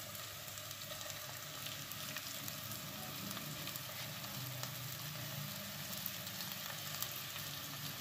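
Hot oil and whole spices sizzling steadily in a frying pan under freshly added mashed boiled potato, with fine crackles throughout.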